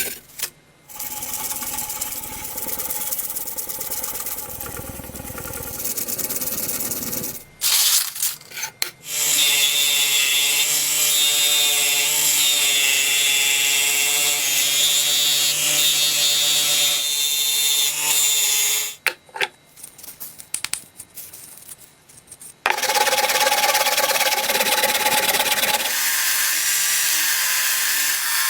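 Handheld electric power tool running while working a rusty knife, its motor giving a steady whine. It runs in three spells, with short pauses about 8 and 20 seconds in.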